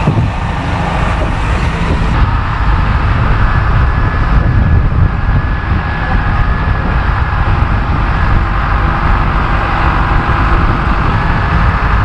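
Steady engine and road rumble of a micro-bus motorhome driving along.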